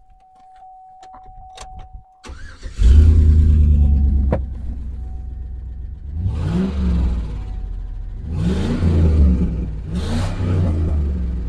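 A 2003 Chevy Silverado's 5.3-litre V8 cranks and catches about three seconds in, then runs and is revved three times. Its exhaust now goes through a Thrush Hush muffler.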